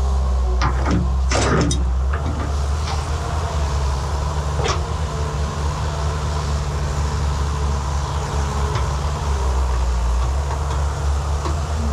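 Excavator's diesel engine running steadily under load, with a few sharp metallic clanks from the bucket and arm, mostly in the first two seconds and once more about five seconds in.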